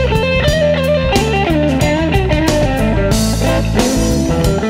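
Chicago blues band recording in an instrumental passage: a lead electric guitar plays a solo line of quick single notes that move up and down, over bass and drums.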